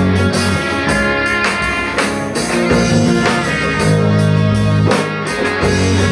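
A live rock band playing an instrumental passage of a worship song, with electric guitar, bass and drum kit hits.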